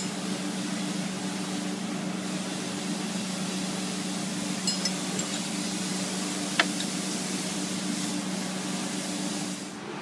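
Steady machine hum with a rush of air, like a shop fan or blower running. A few light clicks come around the middle, then one sharp tick.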